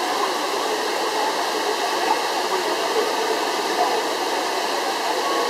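Water of the Trevi Fountain cascading over its rock work into the basin, a steady rushing with the indistinct chatter of voices beneath it.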